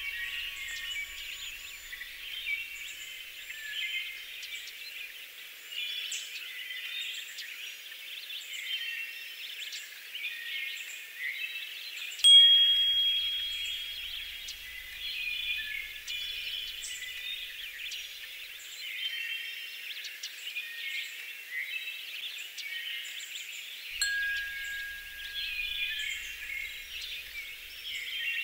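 Continuous high chirping and tinkling, like small birds mixed with wind chimes. About twelve seconds in, one bright chime strike rings out and fades over a couple of seconds, and a softer, lower chime tone sounds near the end.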